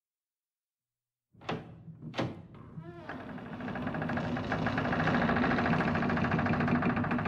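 Sound-effect intro: two sharp knocks, a short creak, then a dense buzzing, fluttering drone that swells up and holds steady.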